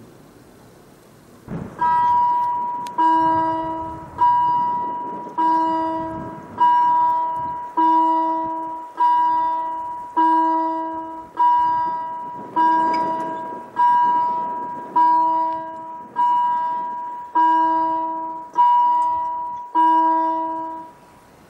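German level-crossing warning bell ringing in a steady series of about sixteen strikes, roughly one every 1.2 seconds, each strike ringing out before the next, then stopping near the end. It rings while the crossing barriers lower across the road for an approaching train.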